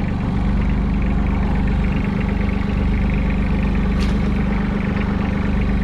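Fishing boat's engine running steadily at an even speed, with a single brief click about four seconds in.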